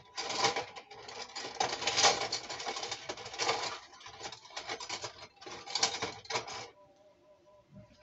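Rapid clattering and rattling of kitchen dishes and utensils being handled, stopping about two-thirds of the way through.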